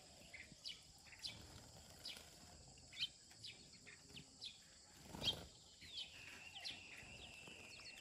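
Faint, scattered chirps from a flock of Eurasian tree sparrows: short high calls every half second or so. A thin, steady high tone joins after about six seconds.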